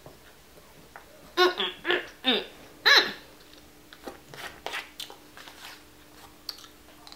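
Several short, high vocal sounds, each falling in pitch, in a quick cluster, followed by soft scattered clicks and taps of a plastic spoon against a foil takeout container.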